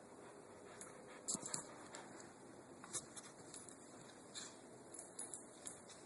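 Two dogs, a Korean Jindo and a papillon mix, playing tug of war: faint scuffling and scattered short clicks, loudest about a second in, with dog sounds now and then.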